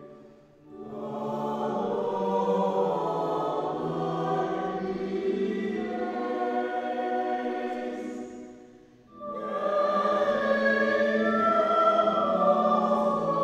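Choir singing a slow hymn in long held notes, with a brief break between phrases near the start and again about nine seconds in.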